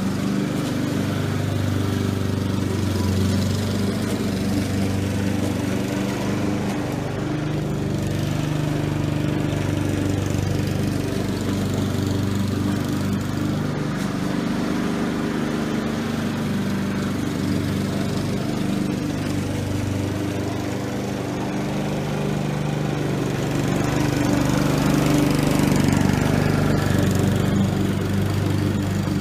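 Honda HRR216 self-propelled walk-behind mower's single-cylinder gas engine running steadily while it cuts grass. It grows louder near the end as the mower comes close.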